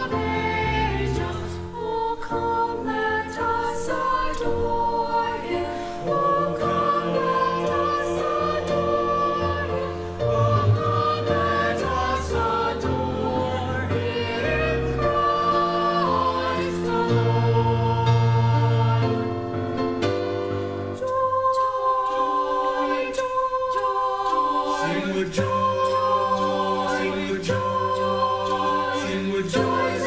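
Mixed-voice high school choir singing a holiday carol in harmony, holding long sustained notes.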